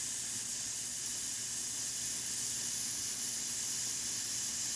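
Natural gas torch burning with a steady hiss as its flame heats the top of a shaft at the low side, to straighten the shaft.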